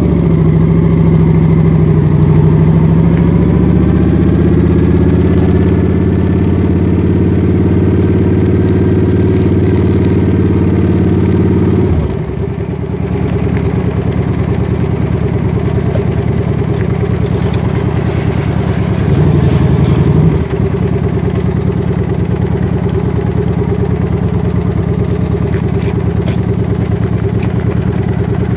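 A vehicle engine running while on the move. Its pitch rises and falls over the first twelve seconds, it dips briefly, and then it settles into a steadier drone.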